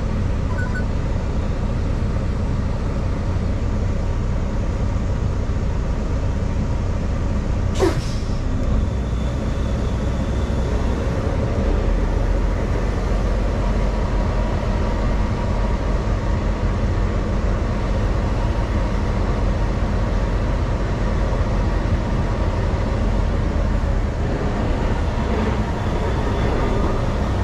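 Semi-truck's diesel engine running steadily, heard from inside the cab as the truck moves slowly up to a booth. A brief sharp sound comes about eight seconds in, and the low rumble grows stronger from about twelve seconds in.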